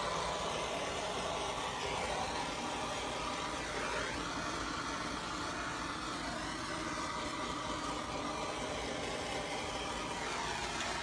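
Handheld gas torch burning with a steady hiss, played over wet acrylic paint to raise cells in the pour.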